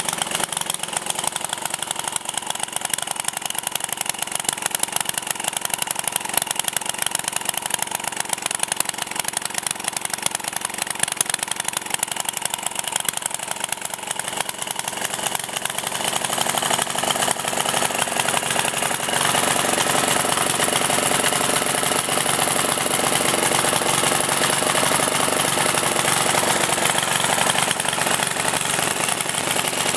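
JAP 2A single-cylinder petrol stationary engine running steadily with a rapid even beat, a little too fast, which the owner puts down to the governor needing adjustment. About halfway through the sound becomes steadier and brighter.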